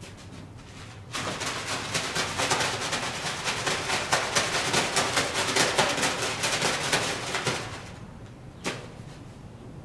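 Plastic bag on the end of a schooling stick being waved and shaken, giving a loud, crackling rustle that starts about a second in and dies away after about seven seconds. A single short knock follows near the end.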